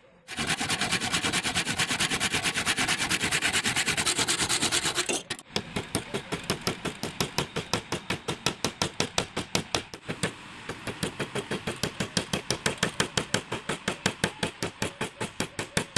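A hammer driving a nail through the centre of a wooden wheel into a wooden frame: a fast, loud run of even blows for about five seconds, a short break, then steady blows about five a second.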